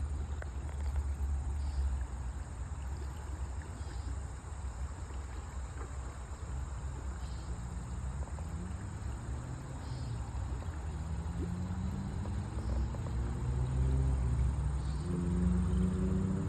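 Outdoor ambience of insects trilling and chirping over a steady low rumble. Music with held tones fades in during the second half and grows louder toward the end.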